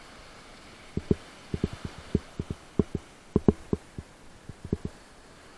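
A run of about twenty soft, irregular low thumps, starting about a second in and stopping near the end, over a steady faint hiss.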